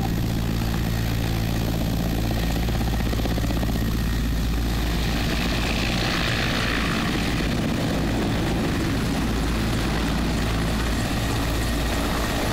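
Mil Mi-17 helicopter running on the ground, its twin turboshaft engines and rotor making a steady low beat under a turbine rush. The higher rush swells about halfway through as the helicopter turns.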